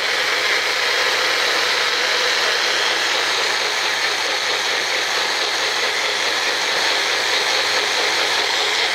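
Magic Bullet personal blender running steadily, its motor spinning the blade through apple, celery and parsley in water and blending them into juice.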